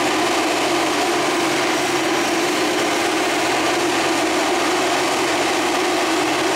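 John Deere 210G excavator's diesel engine idling steadily.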